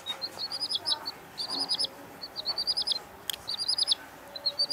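Baby chickens peeping: quick runs of four to six high-pitched chirps, each chirp falling slightly in pitch, the runs repeating about once a second.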